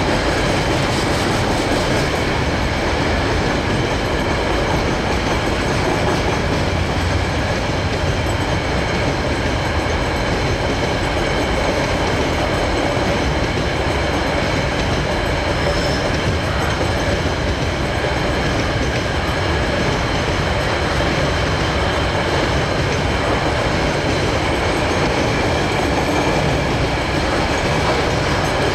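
KiwiRail freight train rolling steadily past, wagon wheels running on the rails with a continuous rumble and several steady high tones over it.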